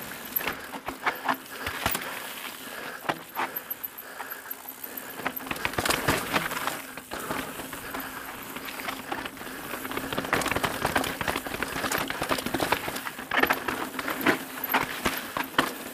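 Full-suspension mountain bike (Evil The Calling) descending rough rock slabs and gravel: tyres rolling and crunching over the surface with irregular clattering knocks and rattles from the bike over bumps, busiest about six seconds in and again in the last third.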